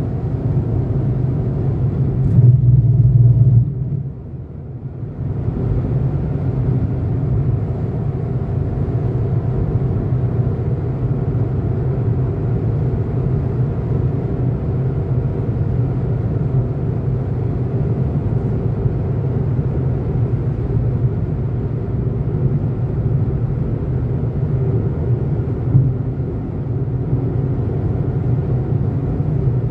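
Steady in-cabin hum of a car's engine and tyres at highway speed, mostly low-pitched. About three seconds in it swells briefly, then drops away for a couple of seconds before settling back to the same steady hum.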